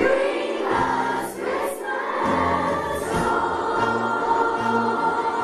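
Children's choir singing a Christmas song over instrumental accompaniment.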